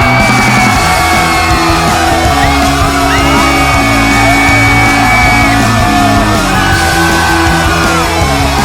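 Loud rock music: a steady bass line moving in steps under a lead melody of long, sliding high notes.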